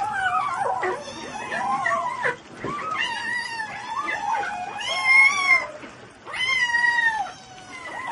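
Several kittens meowing at once, high-pitched overlapping calls that rise and fall, a few held for about a second.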